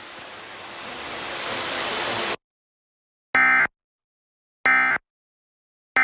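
Steady static hiss that grows slowly louder, then cuts off abruptly after about two and a half seconds. Then the Emergency Alert System end-of-message signal: short, identical bursts of warbling digital data tones, about a second and a third apart, with a third burst starting at the very end. These mark the end of the alert.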